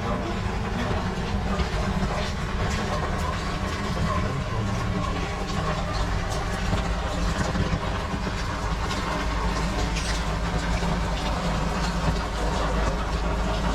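Steady rain ambience in a narrow alley: an even hiss scattered with small ticks of drips, over a continuous low rumble.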